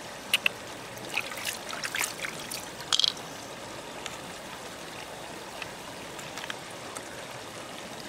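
Wet clicks and squelches of fingers and a knife working through a freshwater pearl mussel's soft flesh and shell, a quick run of them in the first three seconds, then only a few. Steady trickling water underneath.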